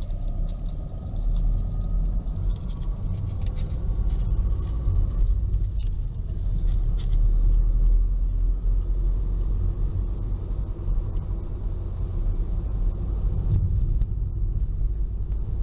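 Inside a moving car: a steady low rumble of road and engine noise.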